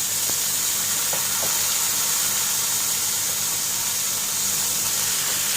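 Chicken pieces sizzling in hot oil in a pan on low flame: a steady frying hiss, with a few faint taps in the first second and a half as more pieces go into the pan.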